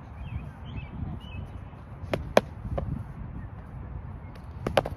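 Foam-padded sparring swords striking, in sharp whacks: three about two seconds in and a quick pair near the end.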